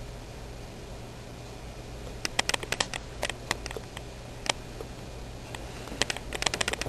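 A steady hiss with a low hum. From about two seconds in come irregular sharp clicks and taps, some in quick clusters.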